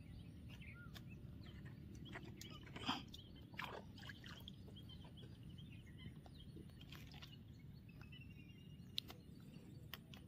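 Near silence: faint outdoor background noise with a few short, faint chirps and clicks, the clearest blip about three seconds in.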